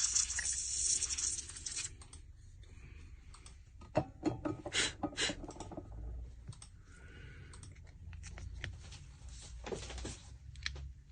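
A hissing noise that stops about two seconds in, then scattered light clicks and taps of small objects being handled, with a cluster about four seconds in and another near the end.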